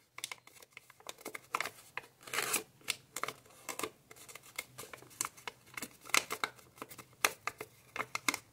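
Thin kami origami paper being folded and pressed into creases by hand: irregular crisp crackles and short rustles, with a longer rustle about two and a half seconds in.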